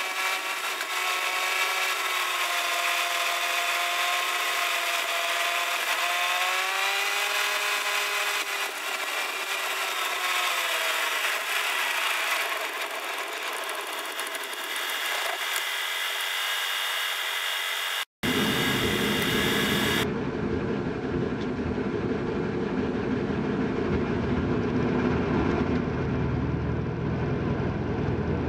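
Fiat 500's 650 cc two-cylinder engine heard from inside the cabin. For most of the time the audio is sped up by time-lapse, so the engine note is high and whiny, rising and falling with the revs. After a short dropout about two-thirds through, it runs at normal speed as a low, steady engine sound in traffic.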